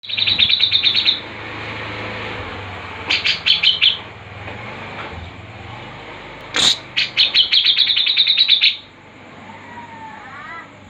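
A small songbird calling in quick runs of sharp, high chirps, about ten a second, each run lasting one to two seconds with pauses between, over a faint steady low hum.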